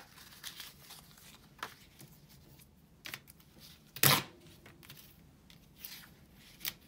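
Scrap of lined notepad paper being torn by hand and handled, in short separate rips and rustles, with one louder sharp sound about four seconds in.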